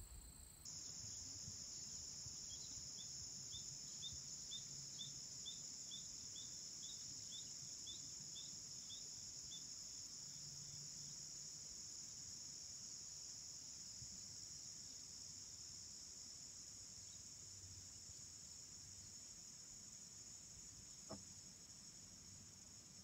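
Faint, steady high-pitched chorus of crickets. For the first several seconds a run of short, evenly spaced chirps, about two a second, sounds over it, and a single faint click comes near the end.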